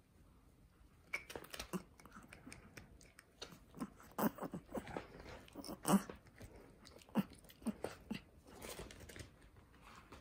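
A Chihuahua gnawing on a hard deer antler chew: quiet, irregular clicks and scrapes of teeth on antler, with a few sharper clacks around the middle.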